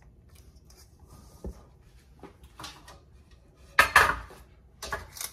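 Metal kitchenware being handled: a few light clicks and a small knock about a second and a half in, then a short, louder clatter about four seconds in.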